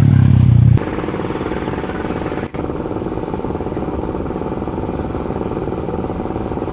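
Engine of construction machinery running steadily at idle. A louder, deeper engine drone cuts off abruptly about a second in, leaving a lighter, evenly pulsing engine rumble that drops out for an instant midway.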